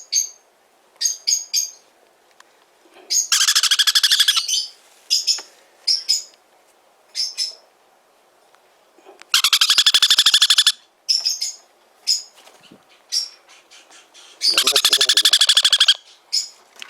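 Sun conure chicks calling: clusters of short, high chirps broken by three long, rapidly pulsing calls of over a second each, which are the loudest.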